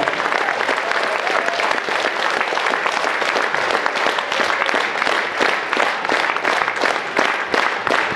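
Audience applauding. In the second half the clapping falls into time, about three claps a second.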